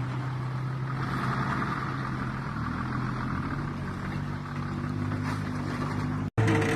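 Off-road vehicle engine running steadily with a low hum; the sound cuts out for an instant near the end and comes back louder.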